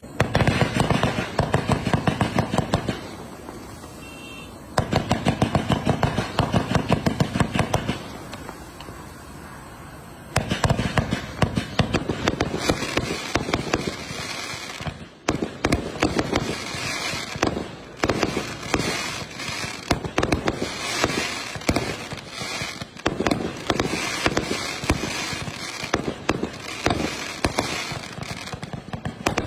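A 268-shot, 1.2-inch Liji 'Milan by Night' fireworks cake firing in rapid strings of launch thumps and bursts. It pauses twice briefly in the first ten seconds, then fires steadily and densely.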